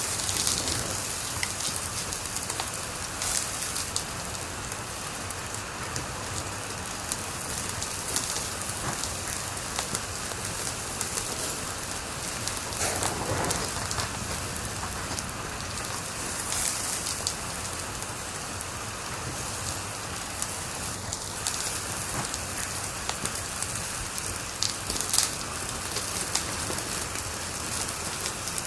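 Wood fire crackling in a fireplace: a steady hiss full of small crackles, with a few louder pops and snaps.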